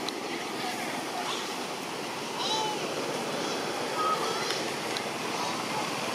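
Steady rushing outdoor background noise, with a few short, faint high chirps about halfway through.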